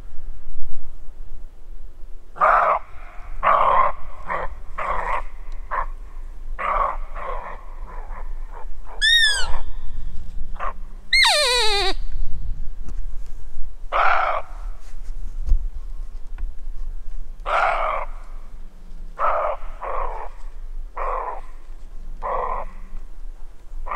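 Roe deer barking: a run of short, hoarse barks about two a second, then single barks spaced a second or more apart, the roe deer's warning call. In the pause between the two runs, two brief whistling glides sound.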